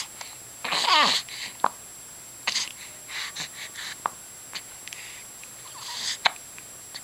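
Baby hiccupping: a few short, sharp hiccups spaced a second or more apart, the loudest near the end. A brief whiny vocal sound with falling pitch about a second in.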